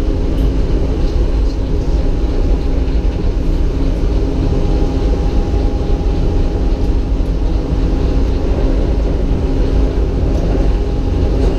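Disneyland Monorail train running, heard from inside its cabin: a steady low rumble with a constant electric hum over it.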